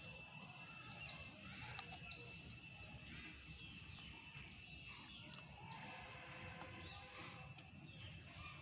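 Faint outdoor background: birds chirping now and then over a steady high-pitched hum, with a few light clicks.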